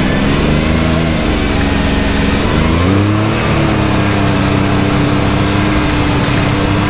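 Can-Am Maverick X3's turbocharged three-cylinder engine running under way, its pitch rising and dipping with the throttle in the first half, then holding steady, over a constant rush of noise.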